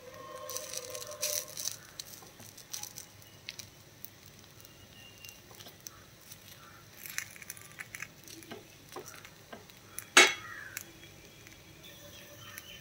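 Paniyaram frying in oil in the wells of a paniyaram pan, with a light sizzle and scattered small clicks and scrapes as a wooden skewer turns the balls against the metal. One sharp clack about ten seconds in is the loudest sound.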